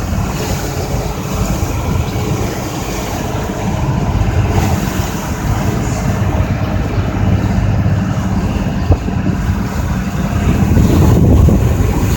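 Small harbour passenger ferry under way: its engine hums steadily, with water rushing past the hull and wind blowing on the microphone.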